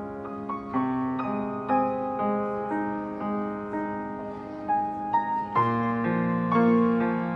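Grand piano played solo: a melody of notes struck about every half second over held, ringing chords, with a deeper bass note coming in a little past halfway.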